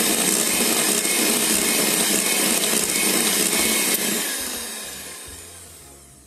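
Electric hand mixer running, its twin beaters whirring through creamed ghee and icing sugar in a glass bowl as the mixture is beaten light and fluffy. The sound holds steady, then fades away over the last two seconds.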